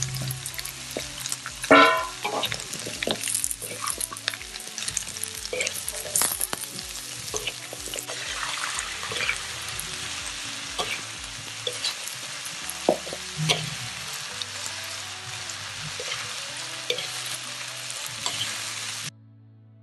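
Food frying and sizzling in a pan while being stirred, with frequent clicks and scrapes of the utensil against the pan and a louder clack about two seconds in. The sizzle cuts off suddenly near the end, and background music plays underneath.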